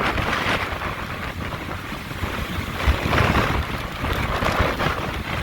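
Hurricane-force wind roaring and buffeting the microphone, swelling and easing in gusts, with the strongest gusts about three seconds in and again near the end.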